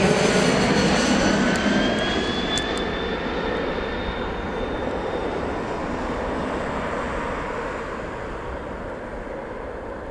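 Bombardier Challenger 601's twin rear-mounted General Electric CF34 turbofans on a low pass: loud jet noise whose pitch drops as the aircraft goes by, then fading steadily as it flies away, with a thin high whine for a few seconds after it passes.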